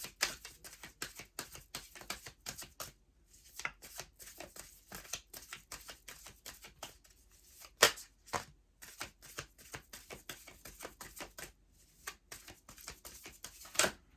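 A deck of oracle cards being shuffled by hand: a long run of quick papery flutters and clicks, with a sharper snap about eight seconds in and another near the end.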